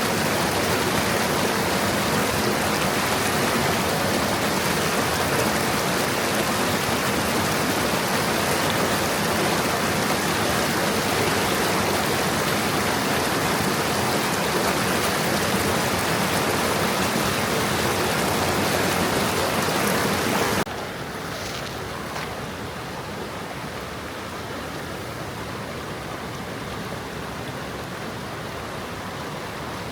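A stream of water flowing over stones, a steady rushing babble. About two-thirds of the way through it cuts abruptly to a quieter, softer stretch of flowing water.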